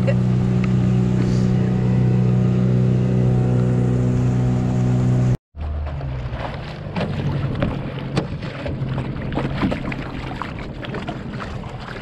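A small boat's outboard motor running steadily at cruising speed. It breaks off abruptly about five seconds in. The engine is then fainter and uneven under rough noise with scattered clicks and knocks.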